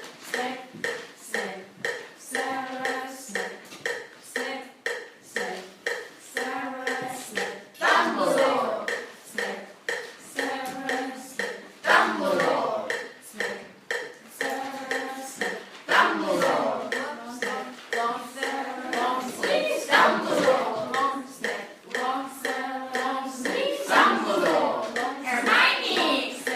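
A steady beat of claps or clicks, with voices singing and chanting in short repeating phrases over it, like a clapping song.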